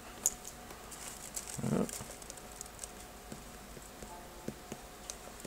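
Light, irregular taps of fingertips on an iPad's glass touchscreen, with a brief low murmur of a voice about a second and a half in.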